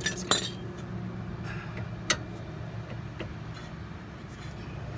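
Sharp metallic clicks and knocks of hand work on a disc brake caliper and its new pads, the caliper being worked back into place, with a few strikes in the first half-second and another about two seconds in. A low steady hum runs underneath.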